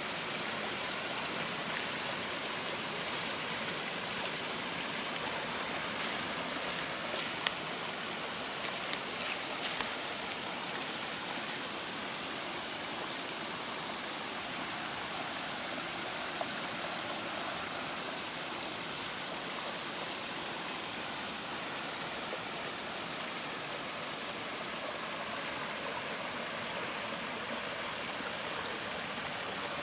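Small creek water spilling over a low rock ledge in a little waterfall: a steady splashing rush. A few faint ticks come between about seven and eleven seconds in.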